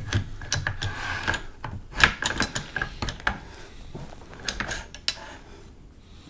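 Irregular metallic clicks and clinks of steel parts being handled and fitted on a Browning 1919 machine gun's receiver during reassembly, with the loudest cluster about two seconds in and scattered clicks after.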